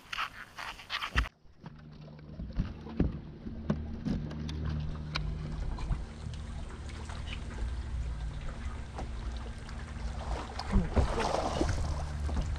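Boat motor running steadily with a low hum, starting about a second in, with scattered light clicks over it.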